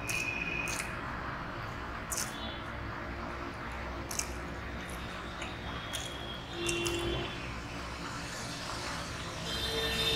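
Close-up eating sounds of a person eating rice by hand: wet chewing and lip smacks, with scattered small clicks and soft squishes as fingers mix and scoop rice from a steel plate.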